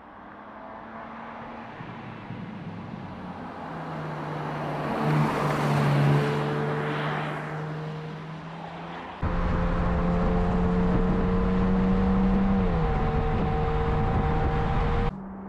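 The 2021 BMW M3 Competition's twin-turbo 3.0-litre inline-six driving by, its steady engine note growing louder as the car approaches and passes about six seconds in, then fading. About nine seconds in the sound jumps abruptly to the engine heard close up, louder with a low rumble. Its pitch holds steady, then drops near the end.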